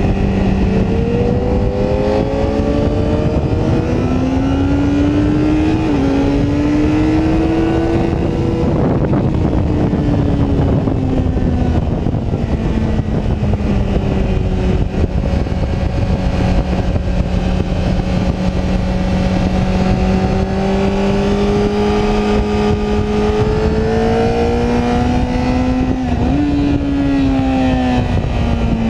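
Sport motorcycle engine, heard from onboard, running hard around a race track over heavy wind rush. Its pitch climbs during the first several seconds, with a brief dip about six seconds in, falls away around ten to twelve seconds as the bike slows, then holds steady. It climbs again later and, near the end, jumps briefly before falling.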